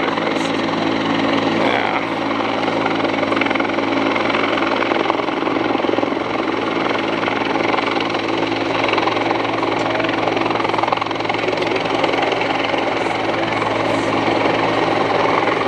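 Rescue helicopter running steadily, a constant engine and rotor drone with unchanging hum tones.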